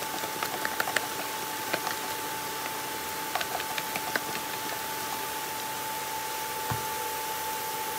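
Soy curls sizzling quietly in an oiled frying pan on a portable induction cooktop, over the cooktop's steady fan noise and a steady high tone. Light clicks and ticks in the first half as seasoning is shaken over the pan, and a soft thump near the end.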